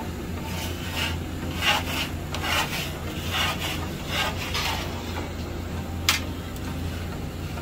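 A long metal peel scrapes across the floor of an open-flame bread oven in repeated short strokes as manakish flatbreads are shifted around to cook evenly. There is a sharp tap about six seconds in, over a steady low hum.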